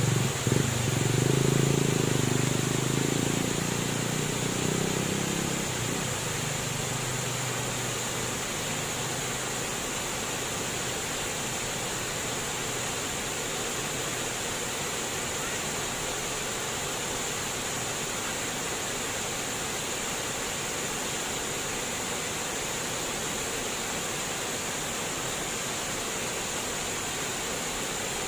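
Flowing water rushing steadily, an even hiss. Over the first six seconds a low droning hum fades away beneath it.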